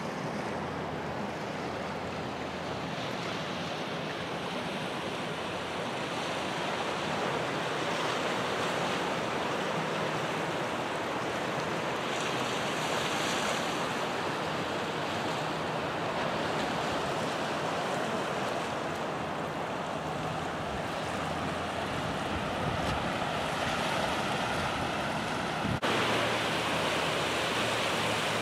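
Small ocean waves breaking and washing over a rocky, seaweed-covered shore: a steady rush of surf that swells and eases gently.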